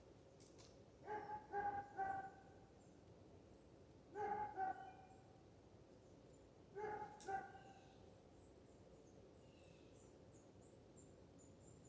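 A dog barking in the distance, in short bursts: three barks about a second in, two more about four seconds in, and two near seven seconds.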